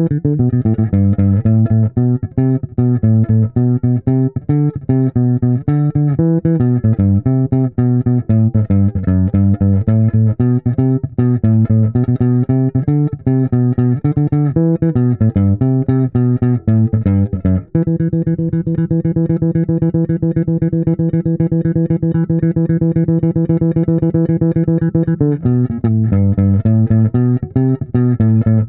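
Washburn Taurus T-24 four-string electric bass played fingerstyle near the neck pickup, on its own, through an amp: a busy, syncopated chorus bass line of moving notes. From about 18 s to 25 s it repeats a single note in quick, even strokes, then goes back to the moving line.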